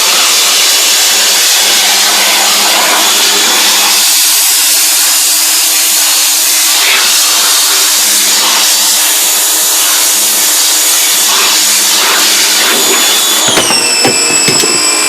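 Pressure washer spraying water onto a silk screen to blast out the emulsion, the motor running steadily under a loud hiss of spray. Near the end the motor's pitch drops as it winds down.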